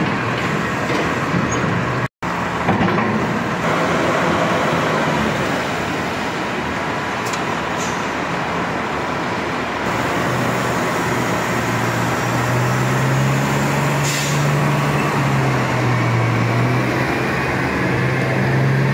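Diesel engines of a log-handling excavator and a terminal tractor running, a steady mechanical din. A deeper engine hum comes up about two-thirds of the way through. The sound cuts out for an instant about two seconds in.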